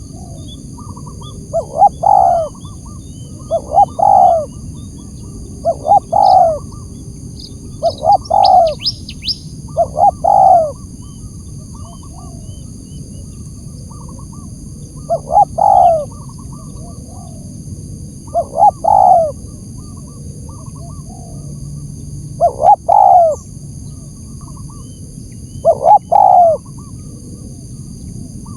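Spotted dove cooing: repeated phrases of a few short soft notes ending in a loud falling coo, about one every two seconds, with a pause of a few seconds midway. It is a lure call used to draw out and provoke territorial doves.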